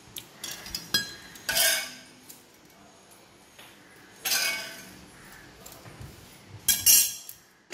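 Kitchen utensils clinking and clattering: about four separate short metallic clatters with a brief ring, over a quiet kitchen background.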